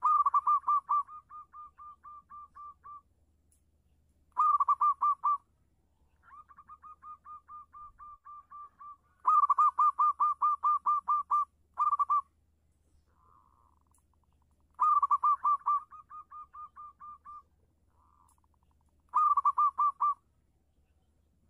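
Zebra dove (perkutut) cooing: phrases of rapid, evenly pulsed notes repeated every few seconds, most starting loud and trailing off fainter.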